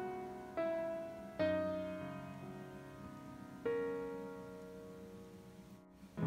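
Background piano music: slow notes and chords, each struck and left to fade, with a brief break shortly before the end.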